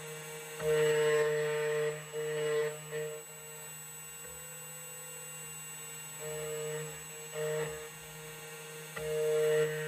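CNC key cutting machine cutting a key blank: a steady motor hum with a higher whine that swells and fades several times as the cutter works along the blade.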